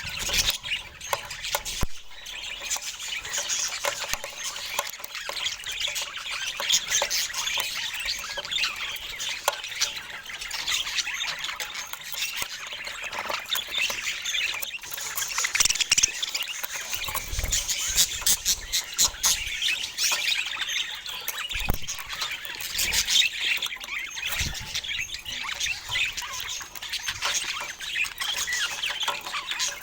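Budgerigars chattering and squawking continuously in a busy, overlapping stream of short chirps, with a few dull low thumps in the second half.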